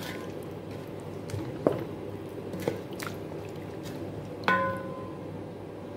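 Wooden spoon stirring a thick cream sauce in a metal pot: soft squelching, with a few knocks of the spoon against the pot that ring briefly. The loudest knock comes about four and a half seconds in.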